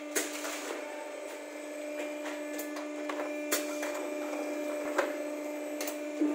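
Book casing-in machine running with a steady hum, with a few sharp clicks and knocks as the book block and hard cover are handled and fed into it.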